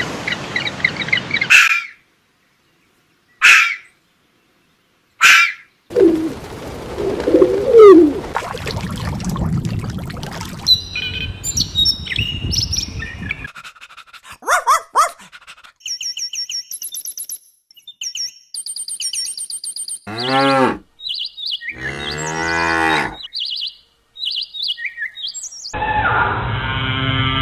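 A series of separate animal calls cut one after another, among them a cow mooing and high bird chirps, with short silent gaps between clips.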